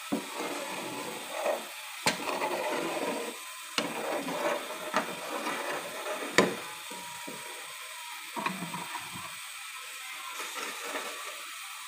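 Steel spoon scraping and clinking against a stainless steel pan while stirring thickening wheat-flour and jaggery halwa. Irregular scraping with a few sharp clinks, the loudest about six seconds in; the stirring grows quieter in the second half.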